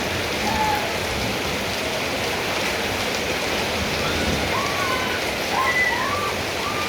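Steady rain falling, a continuous hiss of drops. In the second half a string of short high calls, each rising then falling in pitch, sounds over it.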